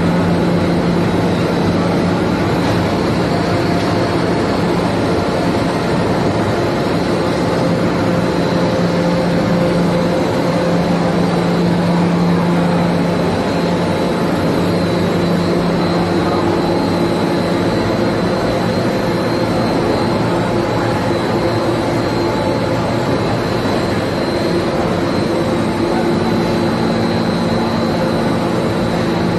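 Soap production line machinery running: an even, loud mechanical drone with a constant low hum.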